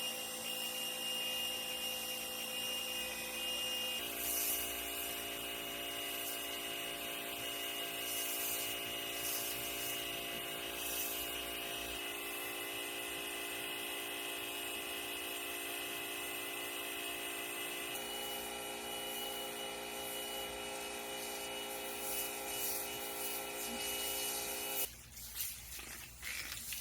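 Pressure washer running steadily, a motor whine over the hiss of the water spray. The pitch of the whine shifts a few times.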